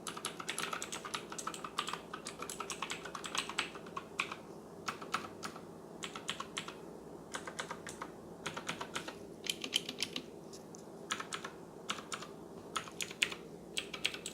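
Typing on a mechanical keyboard with Outemu blue clicky switches (Cherry MX Blue clones): fast runs of sharp, loud key clicks broken by short pauses.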